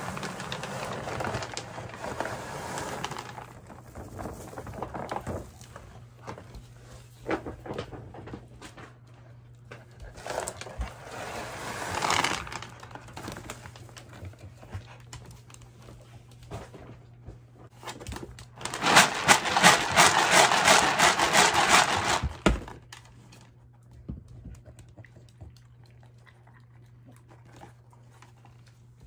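Dry dog kibble pouring from bags into a plastic storage bin: a rattling rush of pellets in several pours, the longest and loudest starting about 19 seconds in and lasting some three seconds.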